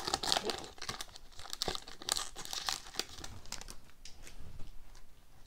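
Foil wrapper of a Panini Titanium hockey card pack crinkling and tearing as it is opened and the cards pulled out, the crackle thinning out over the last couple of seconds.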